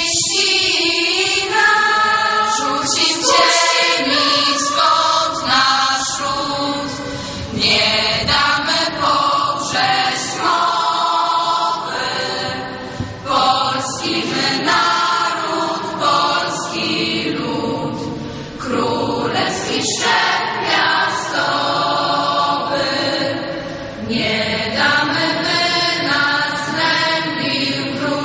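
A children's and youth choir of girls' and boys' voices singing.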